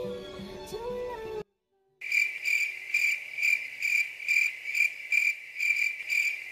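Background music that cuts off about a second and a half in, then after half a second of dead silence an edited-in cricket chirping sound effect, a steady high chirp repeating about twice a second.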